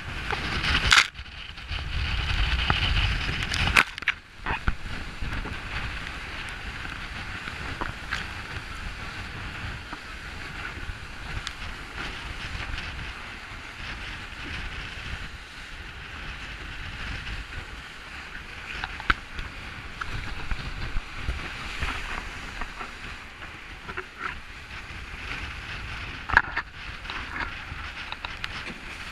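Sailing trimaran moving fast through the sea: a steady rush of wind on the microphone and water rushing past the hull, louder in the first few seconds. Occasional sharp slaps and spray hits come through.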